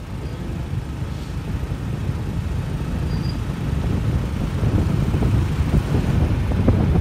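Motorbike being ridden along a road: a low rumble of wind on the microphone and road noise, growing gradually louder.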